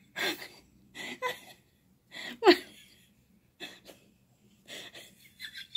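A man laughing in about five short, stifled bursts with his hand over his mouth. One laugh about two and a half seconds in drops in pitch.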